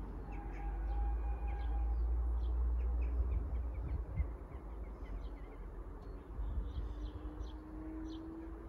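Small birds chirping and twittering, over a low wind rumble on the microphone that is strongest in the first half.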